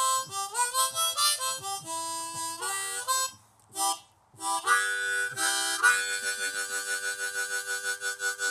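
Harmonica music: a run of short changing notes, a brief break about halfway, then a long held chord that wavers in a quick, even pulse.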